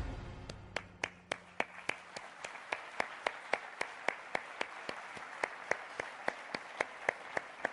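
Audience applauding, with one nearby pair of hands clapping steadily about three or four times a second over the general applause.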